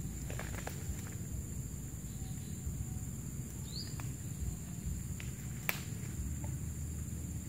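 Insects droning steadily in swamp undergrowth in a high, even pitch, over a low rumble, with a few sharp clicks and one short rising chirp about four seconds in.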